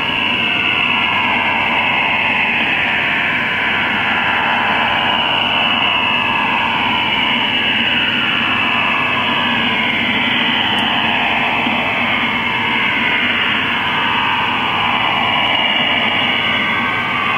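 STANAG 4285 military HF data-modem signal received on shortwave at 6333 kHz: a continuous, even data rush filling the radio's audio band, its texture slowly wavering as the signal fades.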